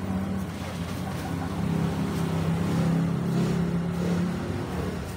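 A motor vehicle engine running with a low, pulsing hum, its note growing louder from about a second and a half in and easing off near the end.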